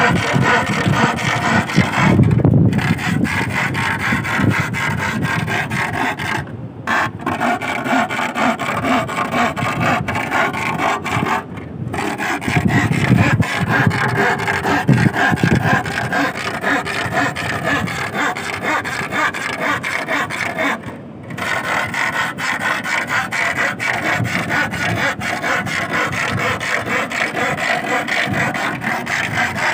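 A metal bar rasped back and forth against a wooden stake driven into the sand, giving a continuous grating scrape that breaks off briefly four times. This is the vibration that sea worm (sasing) gatherers use to drive the worms up out of the sand.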